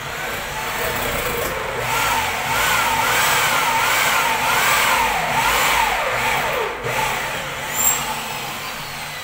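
A motor running, its pitch rising and falling about once a second, then gliding down about six and a half seconds in.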